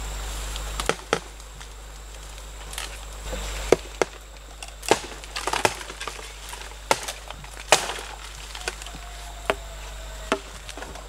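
A standing bamboo stalk being chopped and split, giving about ten sharp woody cracks at irregular intervals, roughly one a second.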